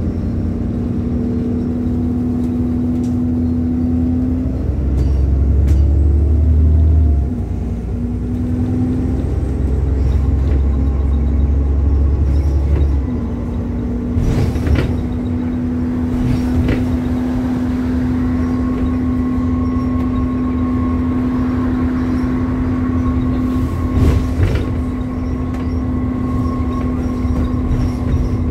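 Bus diesel engine under way: it pulls hard with a deep drone for several seconds, eases off about 13 s in, then runs on steadily with a thin whine. A few sharp knocks and rattles come through, a couple of seconds apart and again later.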